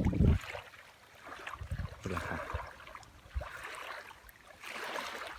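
Small waves washing onto a sandy beach, the hiss of the surf swelling and fading a few times. Wind buffets the microphone at the very start and cuts out.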